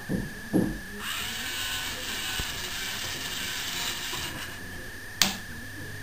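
LEGO robot arm motors whirring through their plastic gear trains as the arm moves, with two low knocks near the start and one sharp click about five seconds in.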